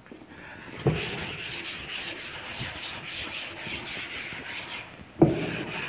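Felt chalkboard duster wiping chalk off a blackboard in back-and-forth strokes, a steady scraping rub. A knock about a second in as the rubbing starts, and another near the end.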